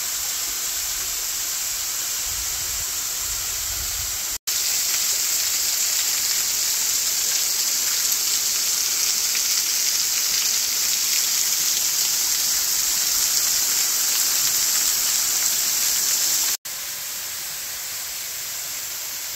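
Small curtain waterfall splashing down a rock face into a pool, a steady rushing hiss of falling water. The sound cuts out briefly twice, about four seconds in and near the end, and comes back at a different loudness.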